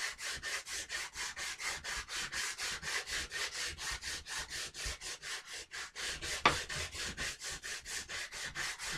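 Sandpaper rubbed by hand over the wooden stock of a Winchester 1906 .22 pump rifle, in quick even back-and-forth strokes, about four a second. There is a short break, then a single sharp knock about six and a half seconds in.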